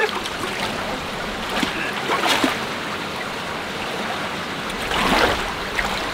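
Shallow creek water running, with footsteps splashing through it as someone wades; two louder splashes come about two seconds and about five seconds in.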